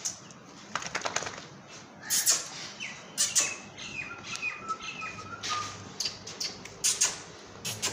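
Thin, high-pitched animal calls, a string of short chirping tones through the middle, over scattered rustles and knocks.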